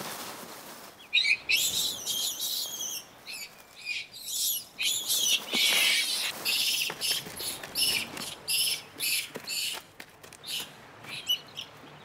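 Small songbirds singing and twittering in quick, high-pitched phrases. The song starts about a second in and goes on in short runs with brief gaps.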